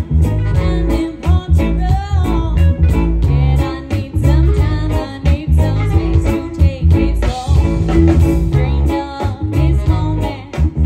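Live band music with a singer over guitar, bass and drums keeping a steady beat.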